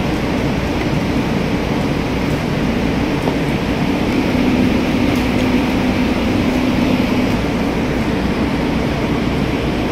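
Steady drone of a running engine, with a low hum that swells slightly for a few seconds in the middle.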